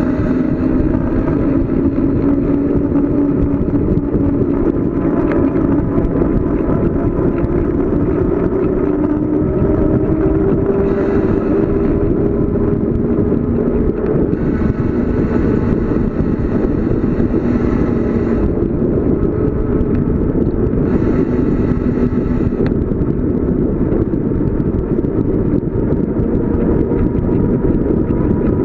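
Steady, loud wind rush and road noise of a bicycle coasting downhill. A low hum climbs slowly in pitch through the first half, and a sharper hiss comes and goes a few times.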